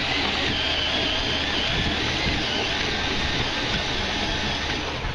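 Steady whir of a cordless power tool driving a canoe's paddle wheels, with the wheels churning the water.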